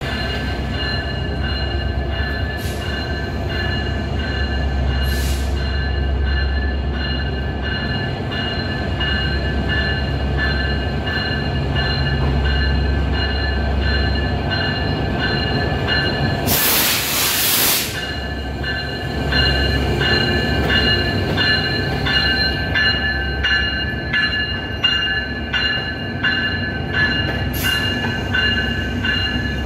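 Diesel-hauled passenger train pulling slowly into a station: the locomotive's low engine rumble under a steady high squeal from the wheels. A loud burst of hiss lasts about a second around the middle. After it, regular clicks come from the coaches' wheels crossing rail joints, about two a second.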